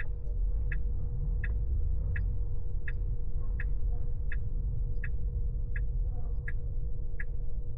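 Tesla turn-signal indicator ticking steadily in the cabin, about one tick every three-quarters of a second, over a low road rumble from the slowly moving car.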